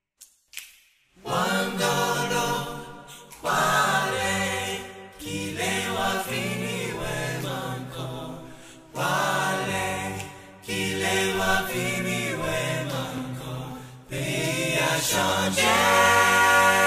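A cappella choir singing in harmony as background music, coming in about a second in after a brief silence, in phrases of a few seconds each.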